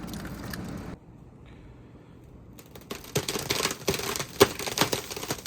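Ice-crusted snow crunching and crackling, a dense run of crisp snaps and cracks in the second half after a short lull.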